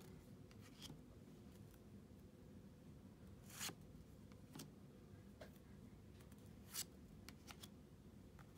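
Pokémon trading cards being slid one at a time from the front of a hand-held stack to the back: two soft swishes about three seconds apart, with fainter card ticks between, all very quiet.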